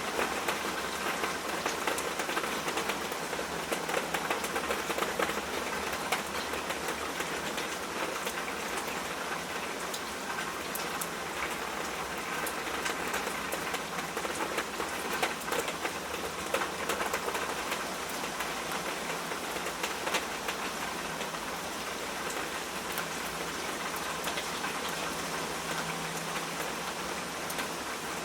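Steady rainfall, with many fine drop ticks spattering on a surface.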